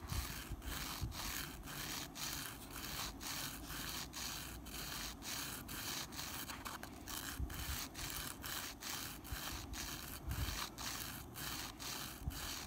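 Steel carburettor jet needle rubbed back and forth on 1000-grit sandpaper, a scratchy rubbing at about two strokes a second. The needle's middle taper is being hand-sharpened to richen the mid-throttle mixture.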